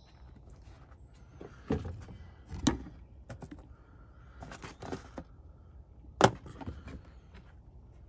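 A hiker's footsteps on a woodland trail: irregular crunches and sharp snaps, the loudest about two and a half seconds in and again about six seconds in.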